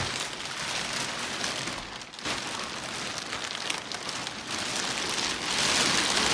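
Thin plastic wrapping rustling and crinkling as it is pulled out from under a foam mattress, growing louder near the end.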